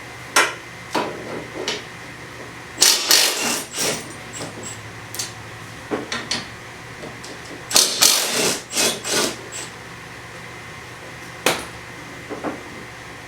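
Milwaukee M12 stubby 1/2-inch impact driver hammering in two short bursts as it breaks loose the bolts that hold the mower's twin blades. Single metallic clanks of the socket, bolts and blades come in between.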